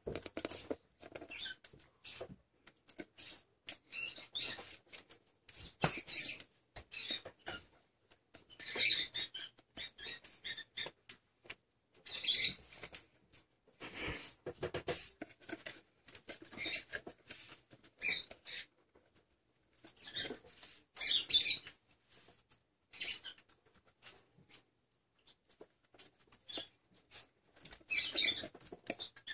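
A parrotlet digging and rummaging with its beak through loose seed in a clear plastic feeder, seeds rattling and scratching in irregular bursts with short pauses between.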